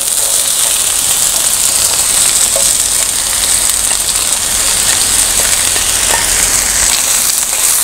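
Diced onions sizzling in hot oil on a large flat iron griddle as they are tipped in: a steady frying hiss.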